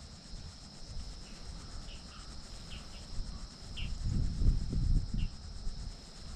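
Crickets trilling steadily and high-pitched, with a few short high chirps scattered through and a low rumble about four seconds in.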